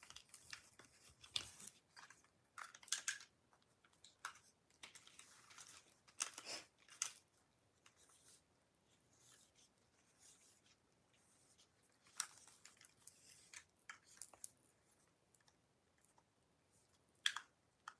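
Faint, scattered plastic clicks and rustles of a compact mirrorless camera and a flexible-leg tripod being handled and fitted together, a few clicks louder than the rest.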